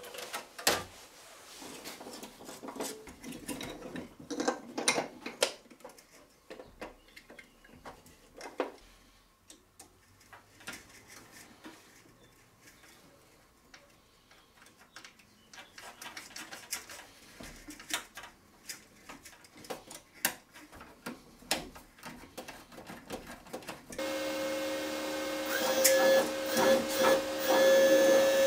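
Clicks and knocks of hands handling a MIG welder's hinged side panel and wire-feed mechanism. About 24 s in, the welder switches on with a steady mechanical whir that gets louder a couple of seconds later.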